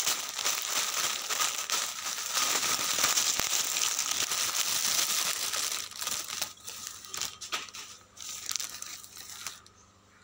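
Clear plastic packaging bag crinkling and tearing as it is opened and a dress pulled out. Dense, continuous rustling for about six seconds, then scattered crinkles that die away near the end.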